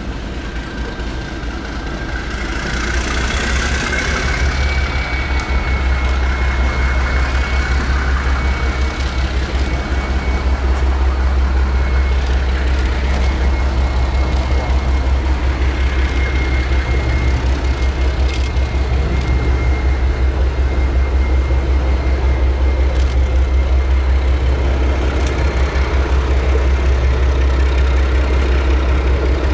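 ALCO diesel switcher locomotive running with a short train, its low engine sound growing louder over the first several seconds and then holding steady, with a thin, steady high whine above it.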